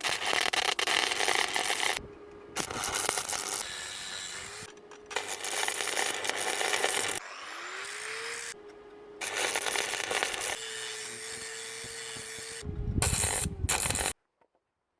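Angle grinder grinding weld on steel in five rough passes, its disc whining at a steady pitch between them. About seven seconds in the grinder spins up again with a rising whine, and the sound cuts off abruptly near the end.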